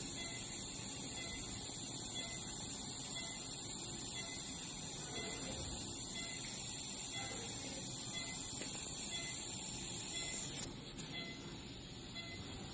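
Steady high-pitched hiss that drops off sharply about ten and a half seconds in, with a brief click just after.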